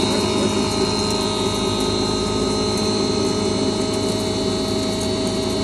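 Stoneless double-chamber millet (bajra) grinding machine running steadily: a constant mechanical whir with a high whine over it.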